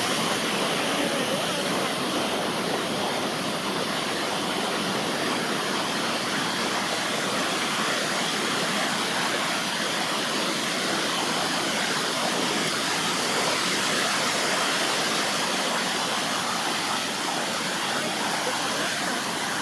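North Sea surf washing onto the beach: a steady, even hiss with no breaks.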